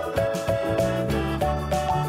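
Upbeat background music: a melody over a steady beat.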